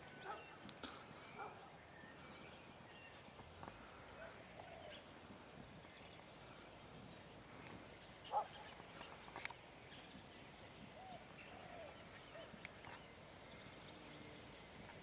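Faint outdoor quiet with scattered bird calls, including two high descending whistles, and a few small clicks.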